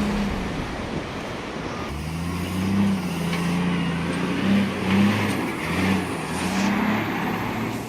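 Heavy equipment engine running and revving. From about two seconds in, it swells and dips several times, roughly once a second.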